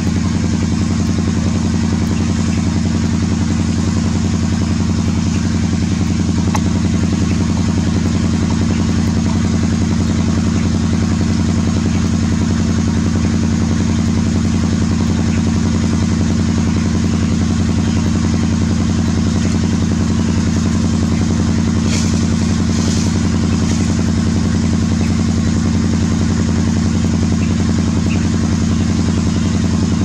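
A steady low motor hum that holds one level and pitch throughout, with no rise or fall.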